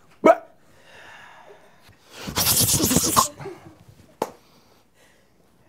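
A man's sudden harsh burst of laughter, about a second long, a couple of seconds in, followed by a sharp click.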